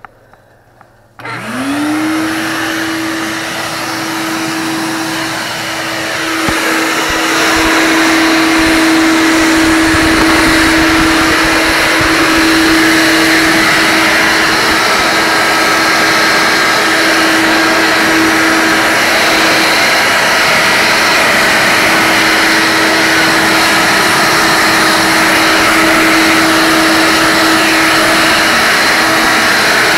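A red Shop-Vac wet/dry vacuum is switched on about a second in. Its motor whines up to speed, then runs steadily and grows a little louder around seven seconds in as its hose nozzle sucks yellow jackets off a window screen.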